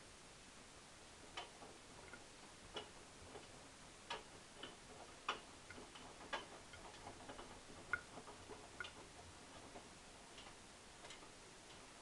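Hotpoint front-loading washing machine drum turning slowly on the rinse tumble, the wet laundry giving irregular faint clicks and taps as it drops and knocks inside the drum. The taps die away a little before the end.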